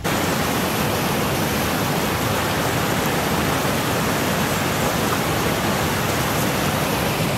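Steady, loud rush of fast-flowing creek water close to the microphone, an even hiss with no breaks.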